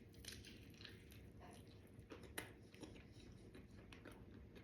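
Faint chewing and biting on a piece of fried chicken, a few small scattered clicks over low room noise.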